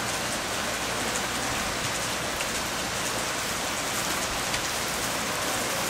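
Heavy hurricane rain pouring down steadily onto wet pavement and a roof.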